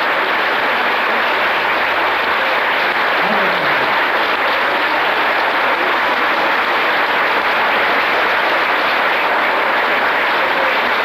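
Crowd applauding steadily, a dense, continuous clapping without a break.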